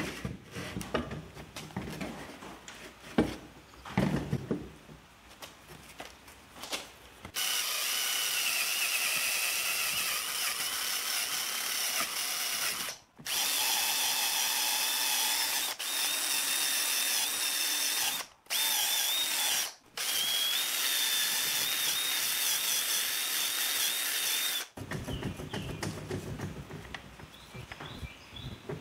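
Handheld rotary tool running at high speed against an outboard's lower-unit gearcase housing, a steady high-pitched whine that stops briefly three times. It is preceded by a few knocks and clatter of parts being handled.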